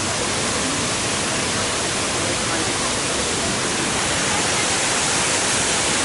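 Shiraito Falls, a broad curtain of many thin cascades spilling down a 20-metre cliff, making a steady, unbroken rush of falling water.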